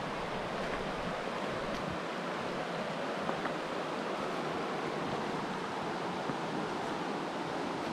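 Steady rush of flowing river water, an even hiss with no change in level, with a couple of faint ticks.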